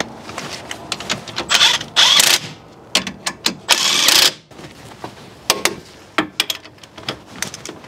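Makita cordless impact wrench running in two short bursts, driving the strut-to-steering-knuckle bolts home. A click-type torque wrench then gives a string of sharp clicks on the same bolts as they are brought to 155 ft-lbs.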